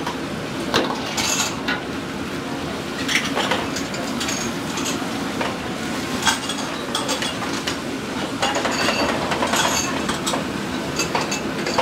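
A metal ladle clanking and scraping against a wok, with repeated sharp metallic strikes, some ringing briefly. A steady roar runs underneath.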